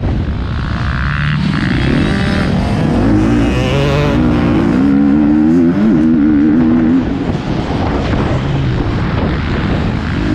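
Motocross bike engine at close range, revving hard under the rider with its pitch climbing and wavering. The throttle eases off briefly about seven seconds in, then the engine picks up again near the end.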